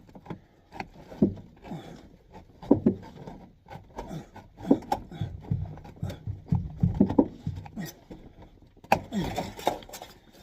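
Irregular scraping, rubbing and knocking as ductwork and insulation are handled in a cramped crawlspace, with sharp clicks scattered throughout.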